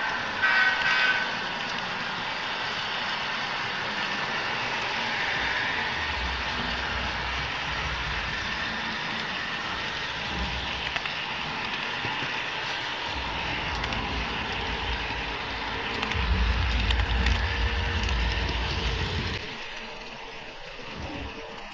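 HO-scale model train running on the layout, a steady running noise with a deeper rumble that swells about 6 seconds in and again about 16 seconds in, then falls away sharply near the end. A pitched, horn-like tone sounds in the first second.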